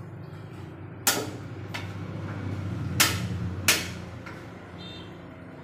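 Four sharp clacks of kitchen work, irregularly spaced, over a low steady hum.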